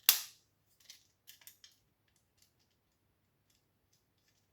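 A sharp snap from a plastic part of a socket face plate being pinched off, then a few light clicks of the plastic parts being handled about a second later.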